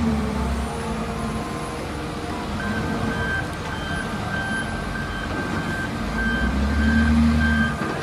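Large Volvo wheel loader's diesel engine working hard as it pushes stone blocks, swelling under load again near the end. A reversing alarm starts beeping about two and a half seconds in, about two beeps a second.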